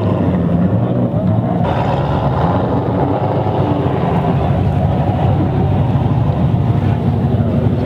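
Loud car engine and exhaust running steadily at a constant low pitch, without revving.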